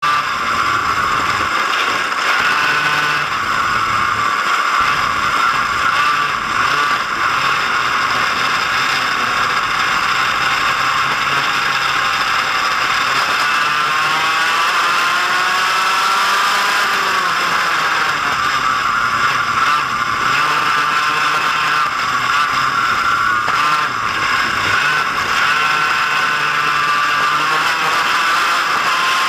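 Go-kart engine running hard at racing speed, heard from on board the kart, its pitch rising and falling repeatedly as the kart slows for corners and accelerates out of them.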